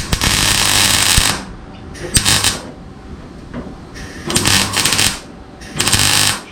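Welder laying short welds on sheet-steel repair panels: four bursts of arc crackle, the first about a second long, then shorter ones with pauses between, as the piece is tacked and plug-welded in.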